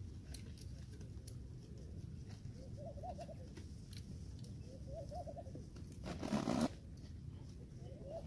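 A dove cooing three times, about two and a half seconds apart, over a low steady rumble, with one brief loud rustle about six seconds in.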